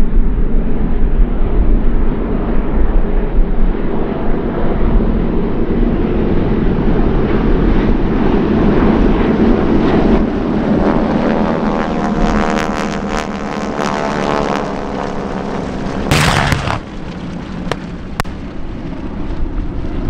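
A formation of propeller warbirds drones overhead, giving way midway to a formation of jets passing by with a rising and falling rush of jet noise. Late on, a sudden loud blast from an airshow pyrotechnic explosion is followed by a couple of sharp pops.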